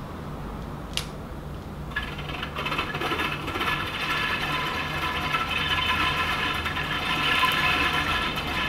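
Winding mechanism of a retractable shade-sail canopy being cranked, its gears and ratchet giving a steady rattling whir from about two seconds in as the canopy is drawn out, after a single click. A faint steady low hum sits underneath.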